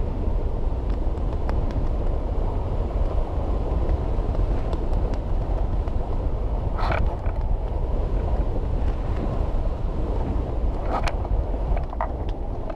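Steady rush of wind over a GoPro's microphone on a hang glider in flight, gliding in low on landing approach. Two short, sharper sounds come through, about seven and eleven seconds in.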